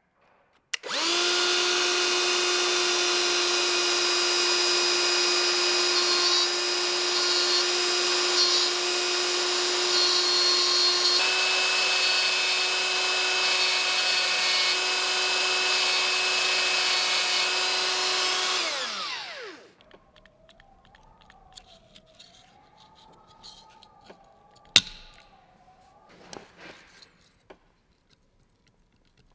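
Handheld rotary tool with a ball-shaped burr running at a steady high pitch for about 18 seconds, grinding off the heads of the small rivets that hold a nameplate on an old electric motor housing, then spinning down. Afterwards there is faint scraping and one sharp click as a thin blade pries the plate up.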